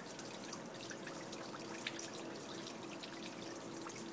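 Water from a hose pouring and trickling into a plastic 5-gallon water jug, pumped up 10 feet of head by a small homebrew beer pump, with steady splashing and dripping. A faint steady hum sits under it from about a second in.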